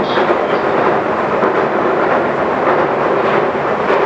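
JR West 221 series electric train running at speed, heard from inside the car: a steady rumble of wheels on rail with a few faint clicks.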